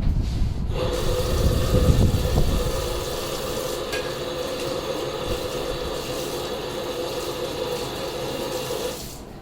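Electric blender motor switched on, running at a steady pitch for about eight seconds and then switched off, with heavy low rumbling of the contents in the first few seconds.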